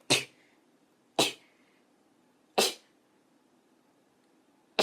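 A young woman sneezing four times in a row: short, sharp sneezes a second or two apart, the last one right at the end.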